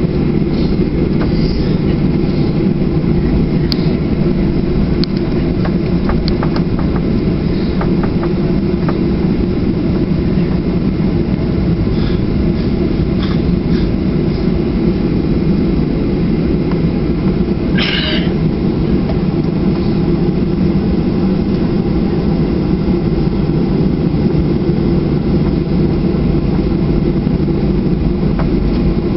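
Steady low rumble of a Boeing 737-800 cabin while the jet taxis after landing, its CFM56-7B engines at idle, heard from inside the cabin. A few faint clicks and one short higher-pitched sound about 18 seconds in.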